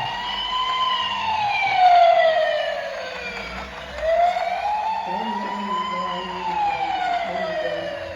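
A toy vehicle's electronic siren wailing, gliding slowly up and then down in pitch, with one full rise and fall about every four seconds.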